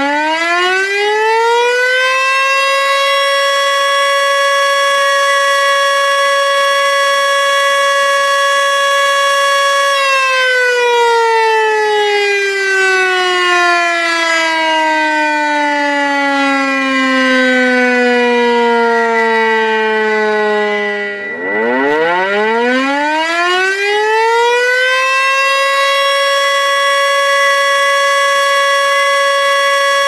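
Civil defense warning siren of the tornado-siren kind, winding up at the start to a steady wail that holds for about seven seconds. It then winds slowly down over about eleven seconds, winds quickly back up, and holds steady again near the end. A faint steady high tone runs throughout.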